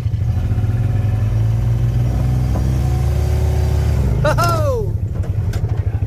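John Deere Gator utility vehicle's engine running and revving up under load for about four seconds as it drives across boggy ground, then settling back to an even chugging beat. A short shout about four seconds in.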